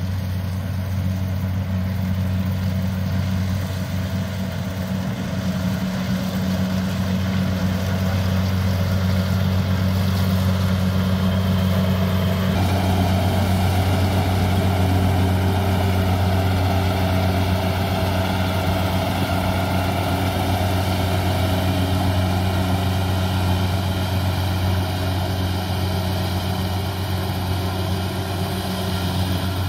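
Kubota DC80 Plus combine harvester's diesel engine running steadily under load while it cuts and threshes rice, a constant low drone. About twelve seconds in the sound turns abruptly fuller and a little louder.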